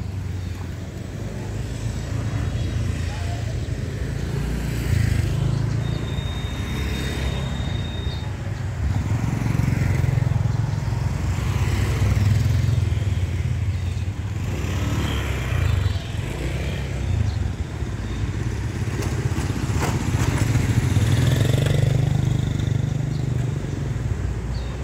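Urban motorbike traffic, small motorcycle engines passing along a narrow lane, over a steady low rumble that swells several times as bikes go by. A brief thin high tone sounds for about two seconds around six seconds in.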